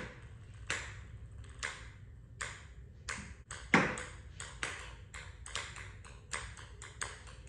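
Ping pong ball bouncing on a concrete floor and off a plywood wall: a string of light sharp clicks, coming quicker and closer together in the second half, with one louder knock about four seconds in.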